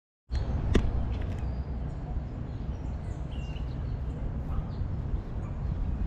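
Outdoor lakeside park ambience: a steady low rumble under a few faint bird chirps, with a sharp click just under a second in.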